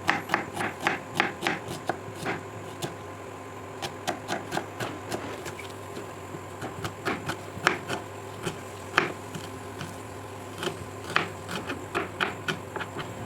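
A knife chopping onions on a cutting board: quick, uneven knocks, several a second, in runs with short pauses.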